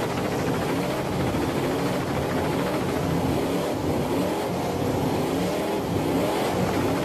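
Many car engines revving hard together at high rpm in a mass burnout, with spinning tyres, making a dense, steady roar.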